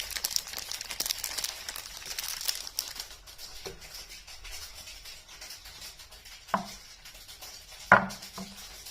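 Packaging crinkling and crackling as it is handled, dying down after about three seconds. Then come a few separate sharp knocks, the loudest near the end.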